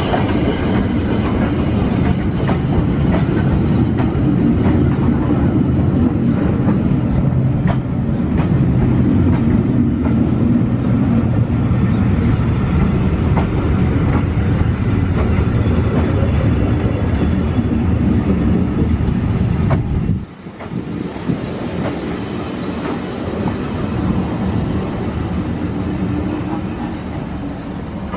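Heritage passenger coaches of a steam train rolling past on the rails: a steady rumble with wheels clacking over rail joints. About twenty seconds in the sound drops abruptly, then carries on quieter.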